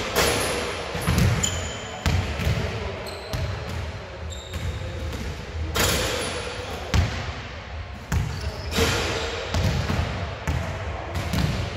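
Basketball play on an indoor court: the ball bouncing and thudding on the floor at irregular intervals, with short high squeaks like sneakers on the hardwood, echoing in the hall.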